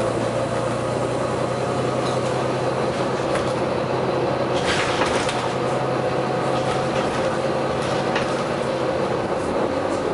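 Steady mechanical running noise, typical of a moving vehicle such as a train, with a constant low hum that stops about nine seconds in and a few brief clicks.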